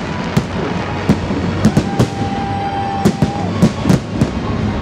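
Fireworks display: aerial shells bursting overhead in about a dozen sharp bangs at irregular spacing, some in quick pairs, over a steady noisy background.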